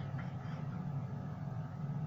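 A knife cutting slices from a baked feqqas log: two short, crisp crunches right at the start, over a steady low hum.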